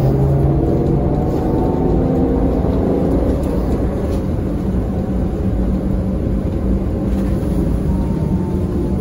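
Cabin noise of a ZIU-682G-012 trolleybus on the move: a steady low rumble from the running gear and road, with the electric traction drive's hum and faint whining tones that shift slowly in pitch.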